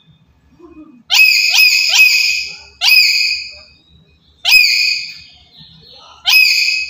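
Black-capped lory giving loud, shrill screeching calls: three in quick succession, then three more single calls spaced a second or two apart.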